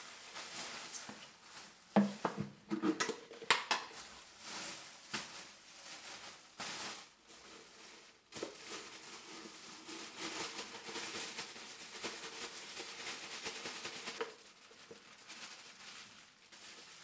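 Thin plastic bags rustling and crinkling as they are handled and stuffed into a plastic tub, with a few sharp knocks and clicks about two to four seconds in.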